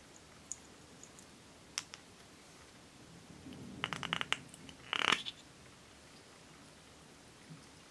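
Chunky silver glitter flakes rattling and clicking in a small clear plastic pot as it is handled: a few faint ticks, then a quick run of sharp clicks about four seconds in and a louder short rattle a second later.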